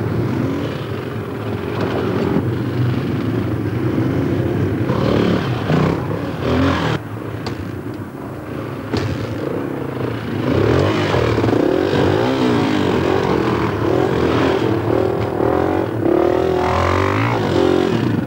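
Engines of small off-road trail motorcycles revving as they are ridden over rough ground, the pitch rising and falling with the throttle. The sound drops a little about halfway through, then the revving picks up again and carries on to the end.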